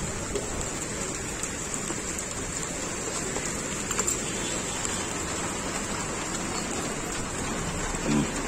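Steady rain falling on a wet street, an even continuous patter with a faint tap or two.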